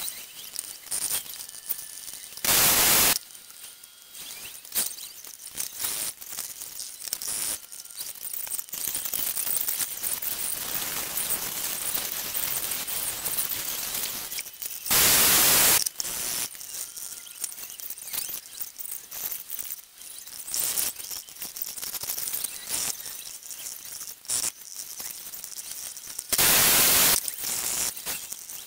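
Polyvance Mini-Fuzer hot-air plastic welder hissing steadily while a glass-fibre-reinforced polypropylene rod is welded into a jet ski hull, with irregular crackling and clicks. Three loud bursts of rushing noise, each about a second long, come roughly twelve seconds apart.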